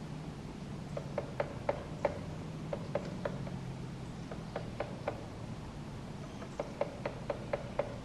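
Japanese green woodpecker pecking at tree bark: short, sharp taps in irregular clusters of four to seven with pauses between, over a steady low hum.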